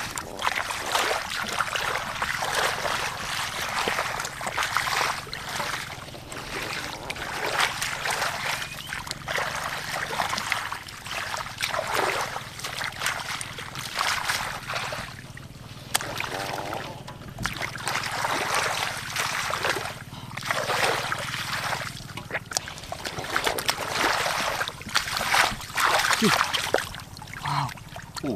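Bare hands scooping and churning through shallow muddy water, with irregular splashes and sloshes every second or two as mud and water are thrown aside.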